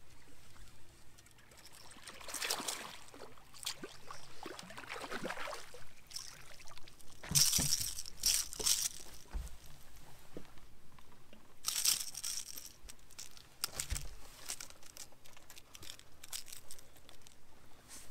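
Water splashing in irregular bursts as a hooked bass is fought to the boat and landed, loudest about seven to nine seconds in, with further splashes near twelve and fourteen seconds.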